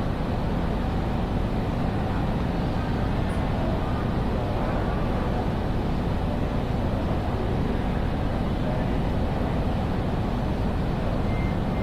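Steady ambience of a large railway station hall: a constant low rumble and hiss with faint, indistinct distant voices mixed in.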